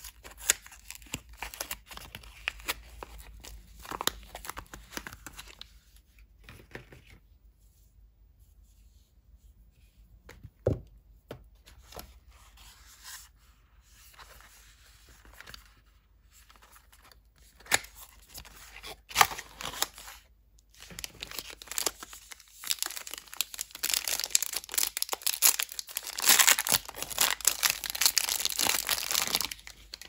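Hands unwrapping bars of soap: a paper wrapper crinkling and rustling in short, irregular spurts. Near the end, a cardboard soap box and its wrapping are torn open in a long run of loud tearing and crinkling.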